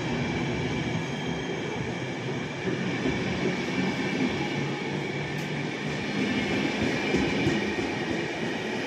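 PKP Intercity passenger coaches passing close by a platform: a steady rumble of wheels on the rails with no break, as carriage after carriage goes by.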